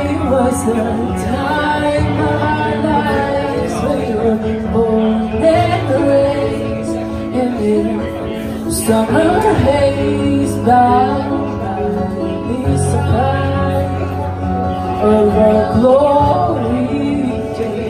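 A woman singing karaoke into a handheld microphone, her voice amplified through a PA over a recorded backing track of held chords.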